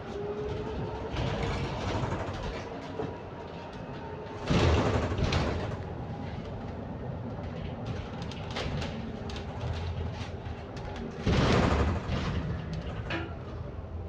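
Inside a moving London bus: running and road noise with many small rattles, and a faint whine that fades out in the first few seconds. Two loud hissing bursts of about a second each come about four and eleven seconds in.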